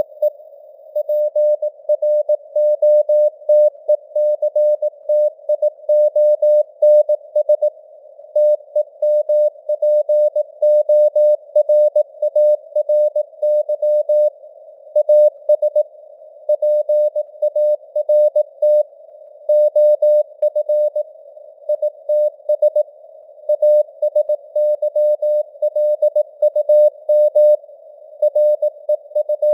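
Morse code (CW) sent at 18 words per minute as a single mid-pitched tone keyed in short dots and longer dashes with brief gaps. It sits in a narrow band of hiss that imitates a radio receiver.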